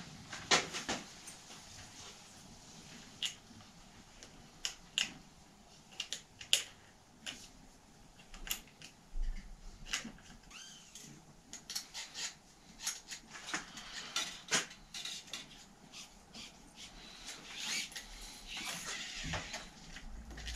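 Scattered small metallic clicks and clinks of hands working at a mountain bike's handlebar controls and cables, during a cable replacement. Near the end comes a brief soft hiss as an inner cable is drawn out.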